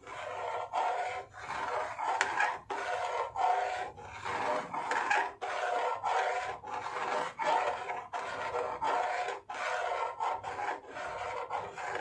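Steel ladle stirring and scraping thick moong dal paste round a metal kadai, a rasping scrape repeated stroke after stroke about once or twice a second.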